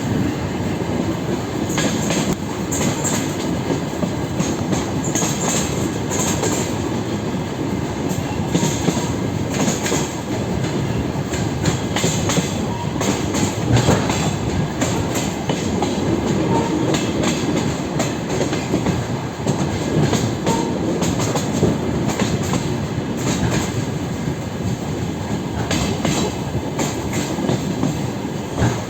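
DR1A diesel railcar train running along the line: a steady rumble with the wheels knocking over the rail joints, a clickety-clack heard from inside the train.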